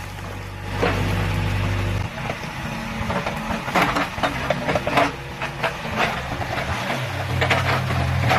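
CASE backhoe's diesel engine working while pulling out a tree stump; its note drops about two seconds in and rises again near the end. Sharp cracks and knocks of wood and roots breaking run through it.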